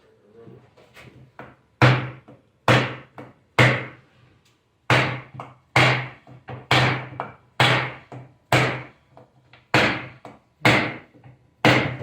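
About eleven hammer blows, roughly one a second, each with a short ring, driving the old ring gear down onto the new posi carrier of a Chevy 10-bolt rear end to seat it.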